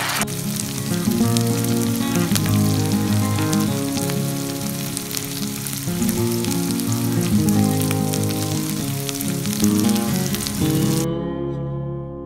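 Food sizzling and frying in an electric grill pan, a steady crackle under background music. The sizzling cuts off suddenly near the end, leaving only the music.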